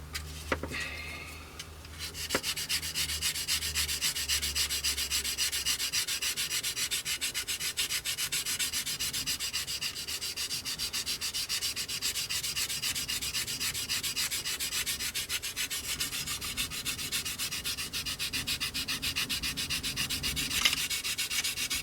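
Medium-grade sanding sponge rubbed back and forth over filler on a plastic model's wing leading edge, in quick, even strokes that start about two seconds in and keep going steadily.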